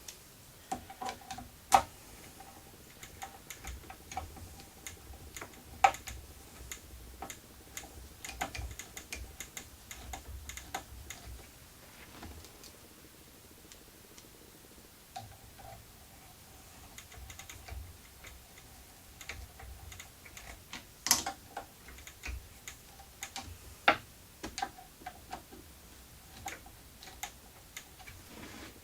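Irregular light metallic clicks and taps as a stepper motor is screwed onto its mount with small screws and a hand tool, with a few sharper knocks scattered through.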